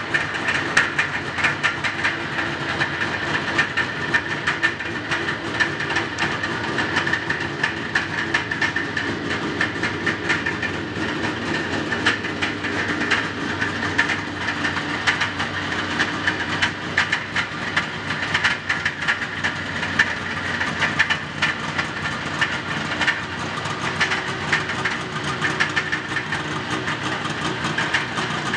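Two-stroke engines of two vintage Arctic Cat snowmobiles, a 1976 Pantera 500 free-air and a 1975 Panther 440 fan-cooled, idling together, running steadily with a rapid, uneven popping.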